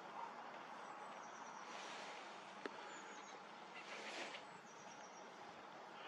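Faint steady outdoor background hiss, with a few short, thin, high bird calls: about a second in, about three seconds in, and near the end.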